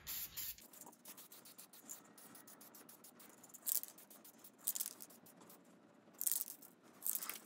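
Aerosol spray paint can spraying in short hisses, about four bursts in the second half, over faint quick clicking and rattling.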